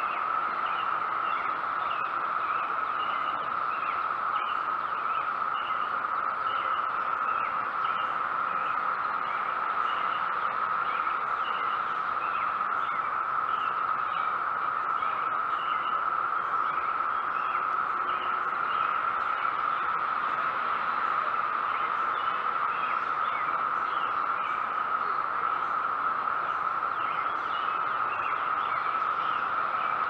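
Chorus of 17-year periodical cicadas droning steadily at one pitch, with many short bird chirps scattered over it.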